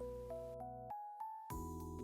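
Light background music: a melody of stepping single notes over a sustained bass, with the bass cutting out for about half a second midway before coming back.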